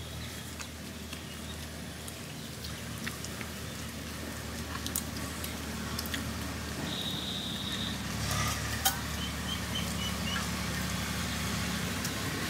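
Steady low hum of an engine or motor, growing a little louder in the second half, with scattered faint clicks. A high held note sounds about seven seconds in, followed by a quick run of short bird chirps.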